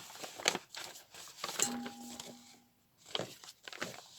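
Paper rustling and crinkling in short, irregular bursts as sheets of paper and ephemera are handled. A faint steady hum sounds briefly about halfway through.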